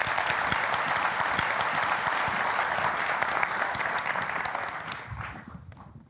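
Large audience applauding, a dense crowd clapping that dies away near the end.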